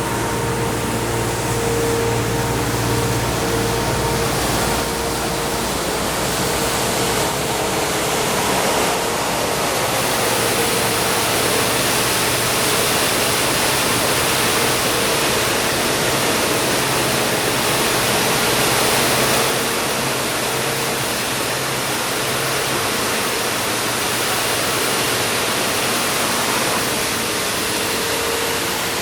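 Diesel road sweeper working, a steady rushing hiss over the engine with a constant high whine; the low engine note is strongest in the first few seconds and the hiss grows fuller in the middle.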